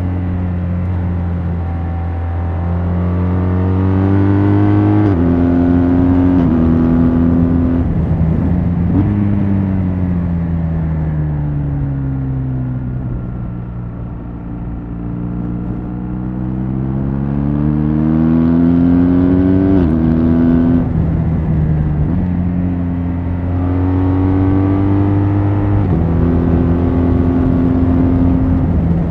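BMW R1200 GS LC's flat-twin boxer engine through its stock exhaust, ridden under way. The engine pitch climbs and then steps abruptly at several gear changes, and midway falls slowly and climbs again as the bike slows and speeds back up.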